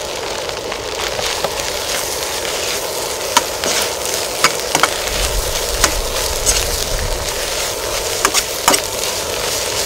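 Food frying in a hot pan: a steady sizzle with sharp pops and clicks scattered through it.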